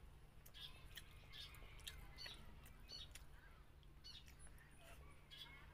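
Faint close-miked chewing: soft, irregular wet mouth clicks and smacks over a low steady hum.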